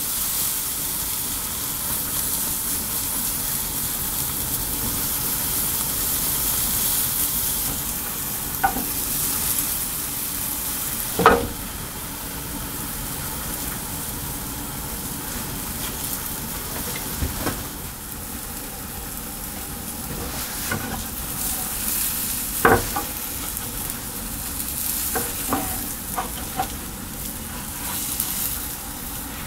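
Rolled omelette sizzling steadily in a rectangular tamagoyaki pan, with a few sharp taps of a spatula against the pan. The loudest tap comes about eleven seconds in, and there is a cluster of taps near the end.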